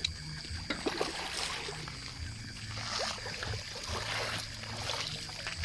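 Water splashing in irregular bursts: a hooked fish thrashing at the surface as it is reeled in.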